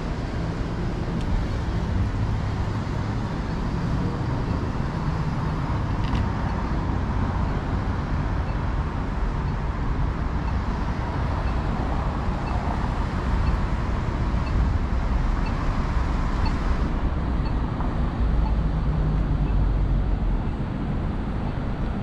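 Steady city street noise: traffic rumble and background hum, heavier for a couple of seconds near the end. A faint tick sounds about once a second for several seconds in the middle.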